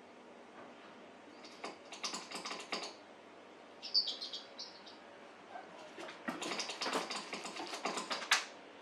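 Cats' paws and claws tapping and scratching at a flat-screen TV, in two quick flurries of clicks, the second longer and busier. A few short high chirps come about four seconds in.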